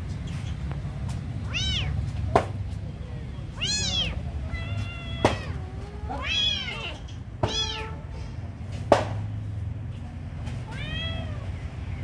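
Kittens mewing: about five short, high mews that rise and fall in pitch, spaced a second or two apart. Several sharp clicks in between stand out as the loudest sounds, over a steady low rumble.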